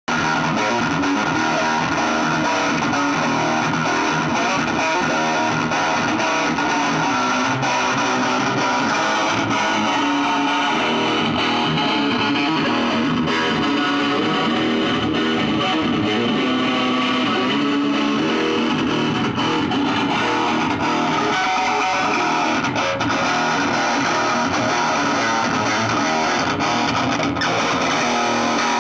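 Guitar music played through a small unbranded amplifier being sound-tested.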